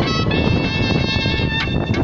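Background music: a full mix with sustained, slightly wavering notes over a steady low-end bed.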